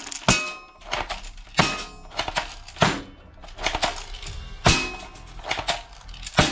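Plastic toy guns clattering and knocking against each other as they are handled and shifted in a box, in irregular sharp clacks about once or twice a second.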